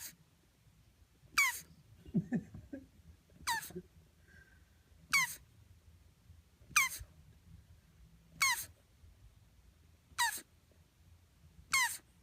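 Male tortoise squeaking while mating: short, high-pitched calls, each falling in pitch, repeated at an even pace of about one every one and a half to two seconds.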